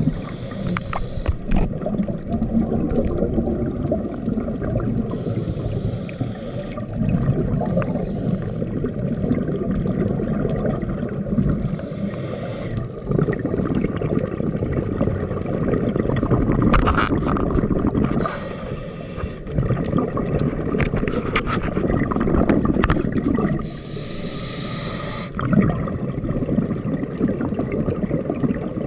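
Scuba breathing through a regulator underwater: long, low bubbling stretches of exhaled air, broken about every five seconds by a brief hiss.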